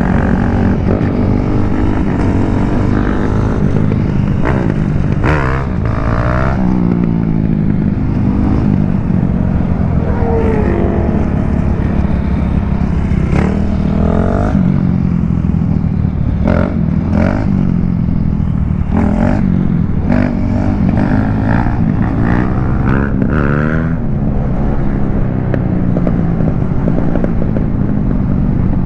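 Motorcycle engine running under way, revving up and easing off, its pitch climbing and dropping back several times through the half-minute.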